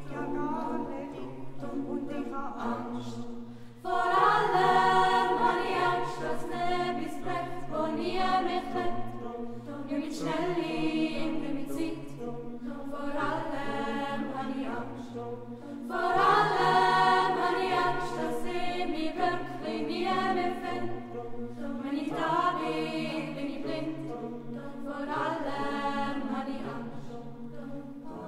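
Youth choir singing a cappella in a church, sustained chords in phrases, swelling suddenly louder about four seconds in and again around sixteen seconds.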